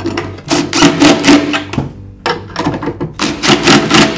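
DeWalt cordless impact driver with a socket extension hammering in two bursts of about a second and a half each, running hex nuts down tight on quarter-inch bolts through a steel pole bracket.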